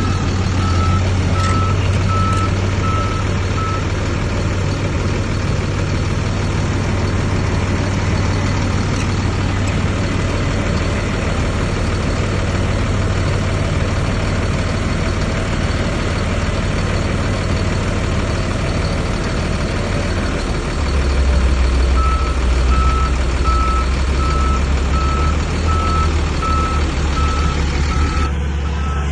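Heavy diesel earthmoving machine engine running steadily, pulling harder with a deeper, louder note about two-thirds of the way through. A reverse alarm beeps in a steady even rhythm for the first few seconds and again from near the end.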